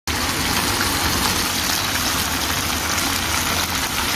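Mutton karahi frying in oil in a karahi wok: a steady, even sizzle.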